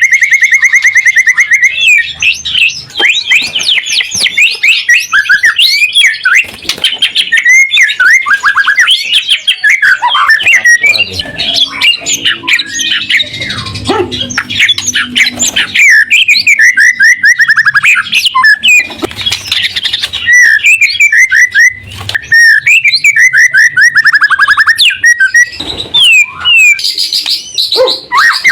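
White-rumped shama (murai batu) in full, continuous song: rapid trills, fast repeated notes, clear whistles and sweeping phrases follow one another with hardly a pause.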